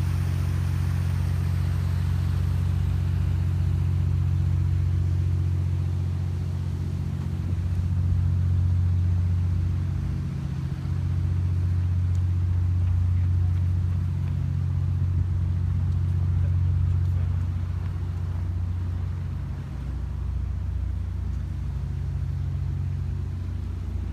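Steady low mechanical rumble with a deep hum, swelling and easing slightly in level.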